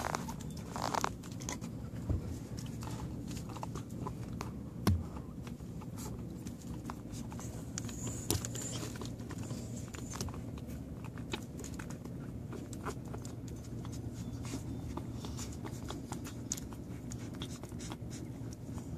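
Newborn pit bull terrier puppies nursing at their mother: many small clicks and rustles over a steady low hum, with one louder knock about five seconds in.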